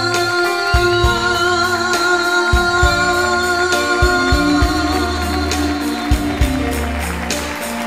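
A woman singing a slow song live into a microphone, with instrumental accompaniment and long held notes.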